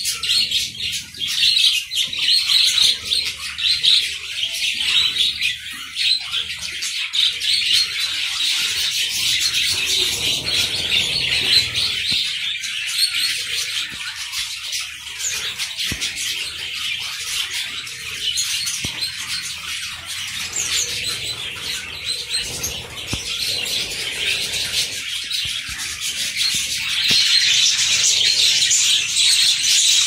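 A large flock of budgerigars chattering, a dense, continuous mass of quick overlapping chirps that gets louder in the last few seconds.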